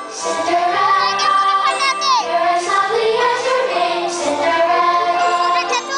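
Show music with singing voices over an orchestral backing, playing steadily and loudly.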